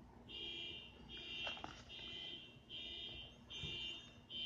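A high-pitched electronic alarm beeping: a steady tone switching on and off a little over once a second, with each beep lasting more than half a second.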